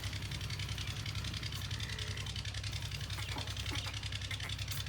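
An engine running steadily at idle with a fast, even knocking beat, and faint voices in the background.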